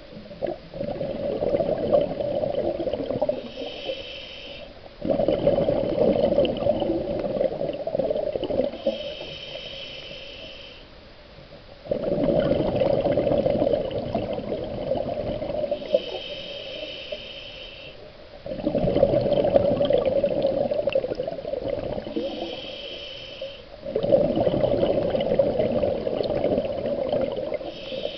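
Scuba diver breathing through a regulator underwater: a short hiss on each inhale, then a long rush of exhaled bubbles, about one breath every six seconds.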